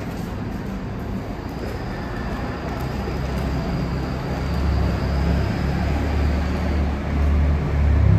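City buses pulling away, with a low engine rumble that grows louder about halfway through and a faint high whine over it.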